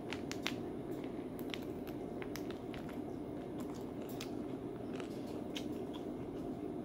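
Chewing and biting on a packaged snack poultry foot, bones and all, heard as scattered sharp crunches over a steady low hum.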